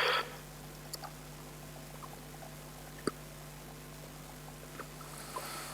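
Faint handling of cellophane-bagged plastic model kit parts: a few small clicks about a second and three seconds in, and a soft rustle near the end, over a low steady hum.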